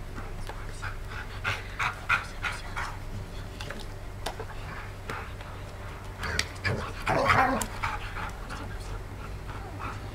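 A large dog panting in short, quick breaths during play. About seven seconds in there is a louder, longer vocal sound.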